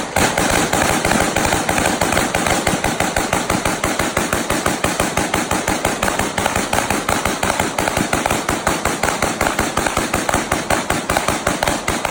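Several semi-automatic AR pistols and handguns mag-dumped at once: a continuous stream of rapid, overlapping shots, many a second, with no pause.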